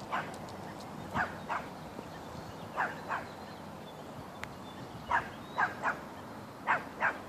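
A Chihuahua puppy yapping: about ten short, high barks, mostly in quick pairs, spaced a second or more apart.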